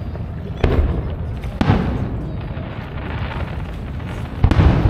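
Aerial fireworks shells bursting: three booms, about half a second in, about a second later and near the end, each trailing off in a rumble.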